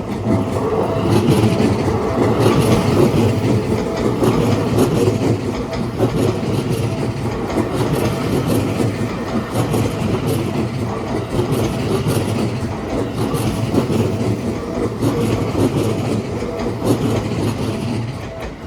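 Seibu Railway electric commuter train running past at a level crossing: a loud, steady rumble of wheels on rails with fast, repeated clatter, lasting nearly twenty seconds and easing off near the end.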